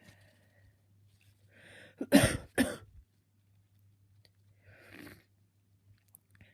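A person with a cold sneezing twice in quick succession, after a sharp breath in about two seconds in. A sniff follows about five seconds in.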